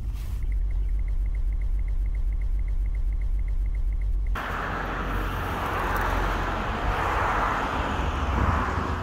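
Car cabin road noise, a steady low rumble from a Hyundai Veracruz driving, with a fast, even ticking over it. A little over four seconds in it cuts abruptly to a loud, steady rush of wind on the microphone outdoors.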